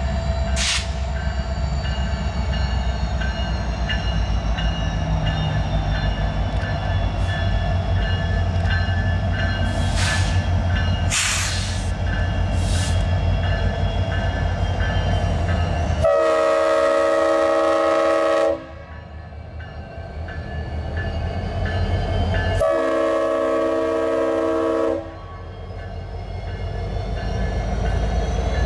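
Norfolk Southern SD70M freight locomotive pulling its train past, the diesel engine drone steady underneath. Its Nathan AirChime RS-5T five-chime horn sounds two long blasts in the second half, each about two and a half seconds, a few seconds apart.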